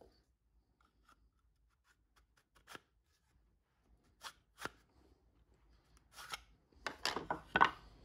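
Hand-handling of a plywood test piece and a black plastic connector: a few sharp clicks and light knocks a second or two apart, then a louder run of knocks and rubbing near the end as the wood is set down on the workbench.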